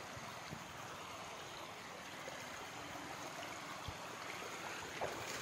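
Muddy floodwater rushing steadily past bushes in a fast, churning current.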